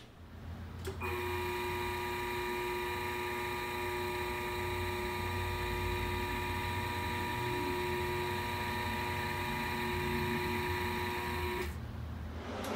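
AC Precision welding positioner's motor running, turning the chuck: a steady whine made of several fixed pitches over a low hum. It starts about a second in and stops shortly before the end.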